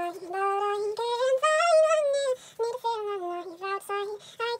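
A woman singing unaccompanied, in long held notes that glide up and down, with a short break about halfway through.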